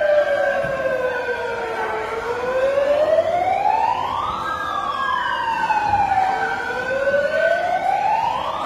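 Emergency vehicle siren wailing: a pitch that falls and rises slowly, about one full sweep every four to five seconds.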